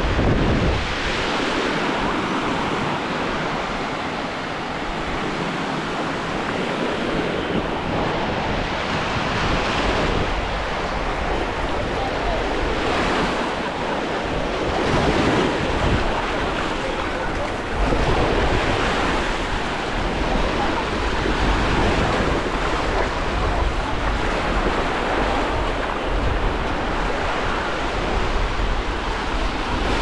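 Small sea waves breaking and washing up a sandy shore in a steady, swelling hiss, with wind buffeting the microphone that grows heavier in the second half.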